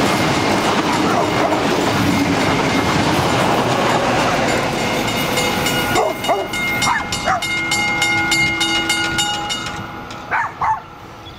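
Carriages of an XPT passenger train rolling over a level crossing with loud wheel and rail noise that clears about six seconds in. The crossing bell keeps ringing with quick, even strokes and stops shortly before the end as the flashing lights go off, and a dog barks a few times.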